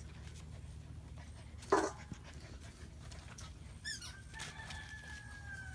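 German Shepherd puppies: one short, sharp yelp about two seconds in, then a long, thin whine from about four seconds in that slowly falls in pitch.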